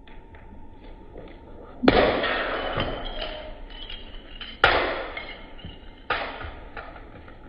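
Three sudden impacts, each quieter than the one before and each trailing off over about a second, consistent with a plastic Rubik's Cube thrown down from a balcony striking the ground.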